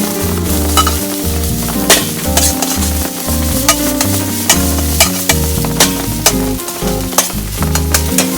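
Stir-frying in a Chinese wok: food sizzling with a steady hiss while the stirring utensil clinks sharply and irregularly against the wok. A musical backing with low bass notes runs underneath.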